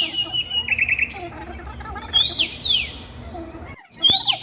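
A bird calling, repeating the same short phrase of quick, high, sliding notes about every two seconds, with a brief cut-out of all sound near the end.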